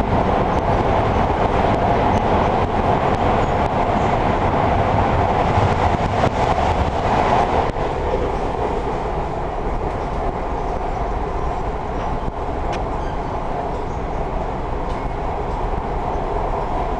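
MARTA rapid-transit train running, heard from inside the passenger car: a steady rumble of wheels and running gear that gets a little quieter about eight seconds in, with a few faint clicks.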